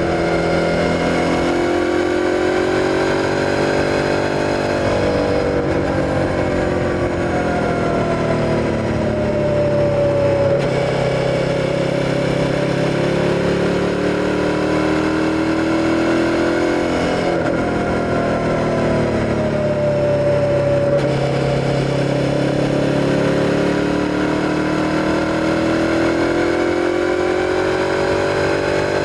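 Suzuki SV650's 645 cc V-twin engine under way, its pitch climbing and falling in long sweeps as the rider works the throttle, with sudden breaks in pitch at gear changes.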